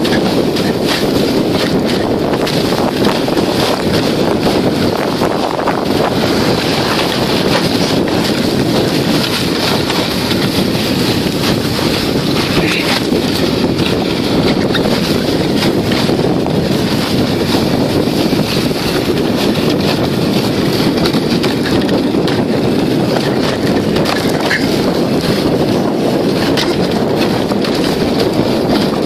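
Steady loud rush of wind buffeting the microphone, mixed with the hiss and scrape of a sledge sliding fast over packed snow on a downhill toboggan run.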